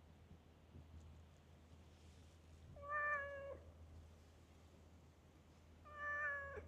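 Calico stray cat meowing twice, about three seconds apart, each meow a short, level call of under a second.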